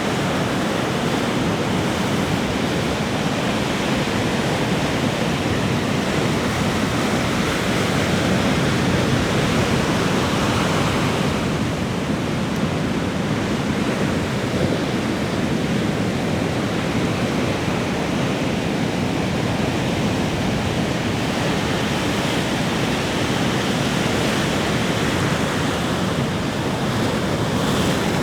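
Ocean surf: waves breaking and washing onto a beach in a continuous rushing wash that swells gently now and then.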